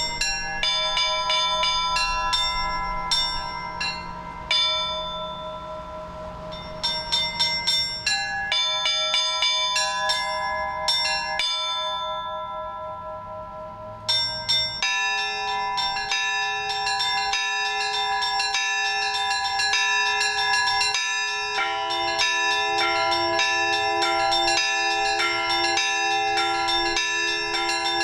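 Orthodox church bells rung by hand from a belfry: quick strikes on several small bells over their ringing tones. About eleven seconds in the ringing dies away, and after about fourteen seconds it comes back as a denser, continuous peal.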